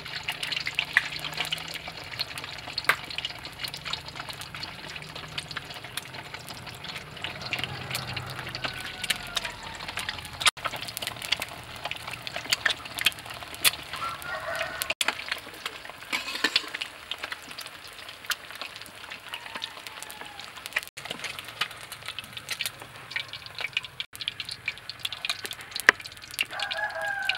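Eggs frying in hot oil in a wok: a steady crackling sizzle with many small sharp pops.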